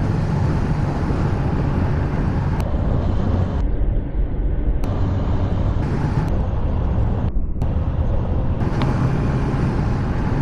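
Honda CBR600F's inline-four engine running steadily, with road noise around it.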